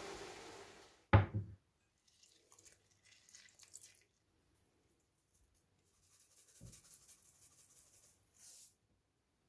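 A steady hiss cuts off about a second in and is followed by a single loud thud. Then come faint clicks and sprinkles as seasonings go onto raw chicken cubes in a glass bowl, with a pepper mill grinding over the bowl near the end.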